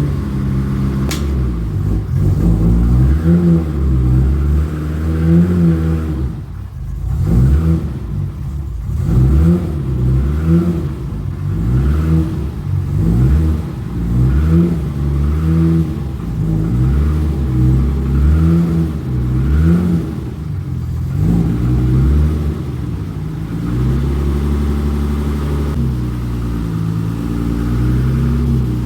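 BMW E30's engine running with repeated throttle blips, rising and falling every second or two as the car is crept forward slowly, then settling to a steadier idle for the last several seconds.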